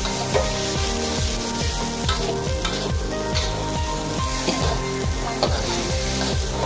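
Venison sizzling as it fries in oil in an aluminium wok, with a spatula stirring and scraping the meat against the pan. Background music with a steady beat plays throughout.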